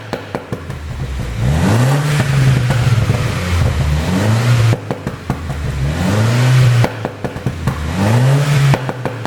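A 2014 BMW F56 Mini Cooper S's turbocharged four-cylinder is revved up and let fall back about three times. Its exhaust crackles and pops each time the revs drop: the 'pop sound' tune, which makes the exhaust pop on overrun.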